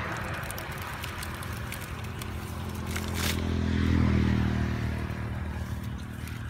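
Wet weeds and a fishing net being dragged and pulled apart on grass, with scattered rustles and scrapes. Under it a low engine hum swells to its loudest about four seconds in, then fades.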